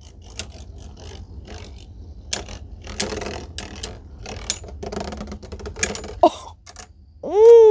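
Two metal Beyblade spinning tops, Flame Sagittario and Big Bang Pegasus, whirring as they spin in a plastic BeyStadium, with sharp clacks several times at irregular moments as they collide.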